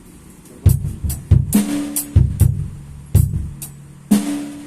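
Music: a drum-kit beat of kick and snare hits, starting about half a second in, with two short held low notes.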